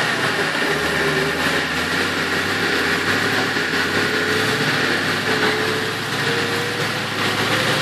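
Classic Range Rover's engine running steadily as the vehicle is winched slowly forward through deep mud, with a steady high whine over it.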